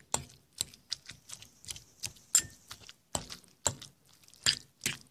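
Metal fork mashing cooked pumpkin in a bowl. The fork clicks against the bowl about three times a second, unevenly spaced, with soft squishing in between.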